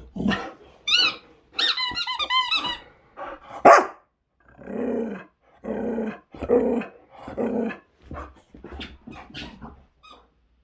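Boxer dog chomping on a squeaky toy: a quick run of high squeaks in the first few seconds, then four short growls about a second apart, then a few softer squeaks.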